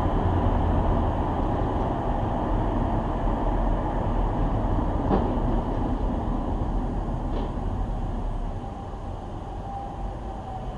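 Steady road and engine rumble of a car driving on a highway, heard from inside the cabin through a dashcam microphone, with two faint clicks about five and seven seconds in. The rumble eases slightly near the end.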